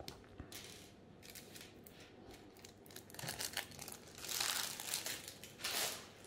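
Thin clear plastic bag crinkling as a hand handles and crumples it, in a few rustling bursts over the last three seconds.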